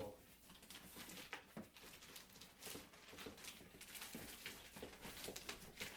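Faint, irregular rustling and light clicks of packaging being handled while parts are taken out of a chair's shipping box.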